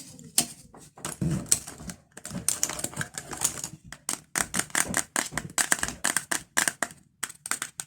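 Fingernails tapping quickly on a pencil case: a fast, uneven run of sharp clicks, several a second.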